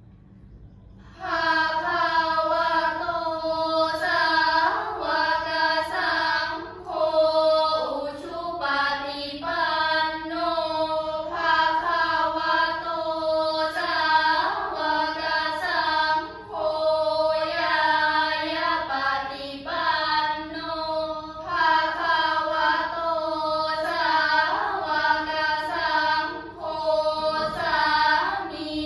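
A team of girls chanting Buddhist prayers in unison, a melodic recitation in phrases with short breaks for breath, starting about a second in.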